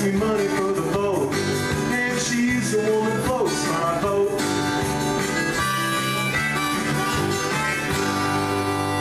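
Harmonica in a neck holder played over a strummed acoustic guitar, one performer playing both. The harmonica holds long notes, with a bent note falling about three and a half seconds in.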